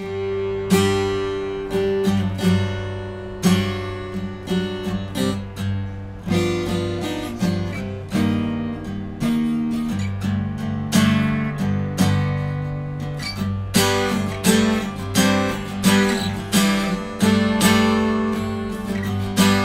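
Ibanez AE900NT acoustic guitar, solid spruce top with rosewood back and sides, played unplugged: strummed chords and picked notes ringing over a sustained low bass note. Heard through a GoPro's microphone with a little room-mic blend, no pickup signal.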